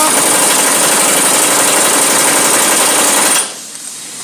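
Pneumatic impact wrench tightening the mounting bolt of a new lower control arm: it spins up, runs steadily, then cuts off about three and a half seconds in.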